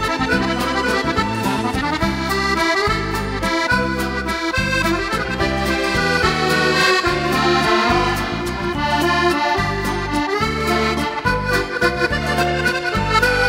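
Instrumental background music, a lively tune over a steady bass beat of about two beats a second.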